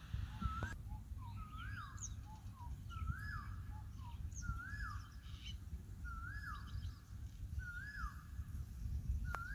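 A bird calling over and over, one short whistled note that rises and falls, about once every 1.2 seconds, over a low rumble of wind. A single sharp click comes near the end.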